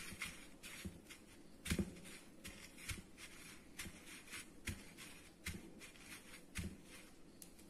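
Fingers pressing and rolling a fish finger in a plate of dry breadcrumbs: faint crunching and rustling with a few soft knocks.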